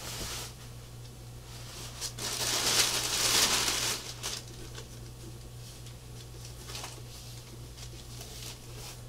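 Plastic bag and foam packing rustling and crinkling as they are handled and pulled off a turntable, loudest about two to four seconds in.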